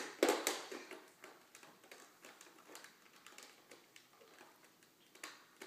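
Toy vacuum cleaner clicking and rattling as it is handled. There are a couple of louder clicks at the start, then an irregular run of fainter clicks and taps, with no motor hum.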